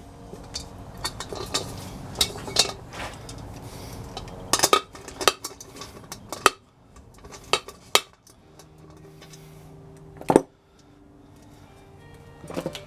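Metal parts and hand tools clinking and clattering on a workbench: a dozen or so irregular sharp clicks and knocks, some ringing briefly.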